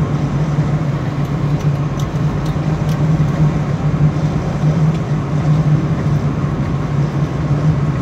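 Steady road and engine noise inside a car cruising at highway speed, about 80 to 90 km/h, with a continuous low hum under a wide rushing noise.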